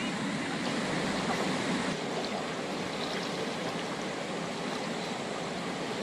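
Steady rushing of a shallow river's flowing water.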